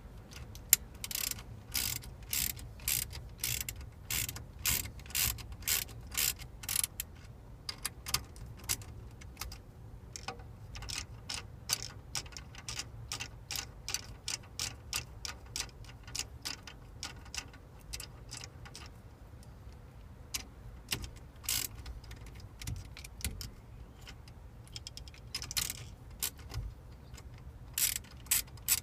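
Hand ratchet clicking in runs of quick, sharp clicks with short pauses, typical of a socket ratchet turning fasteners.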